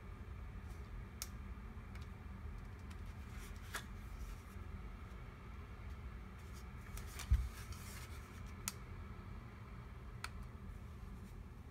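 Hard plastic dash camera and its suction-cup mount being handled, giving a scattered series of sharp clicks and a louder knock about seven seconds in, over a low steady hum.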